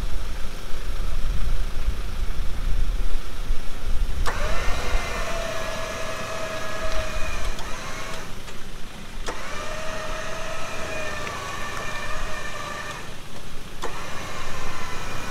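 Electric winch pulling in three runs of a few seconds each. Each run starts with a click, then a steady whine that drops a little in pitch as the winch takes up the load. A vehicle engine runs underneath, loudest in the first few seconds.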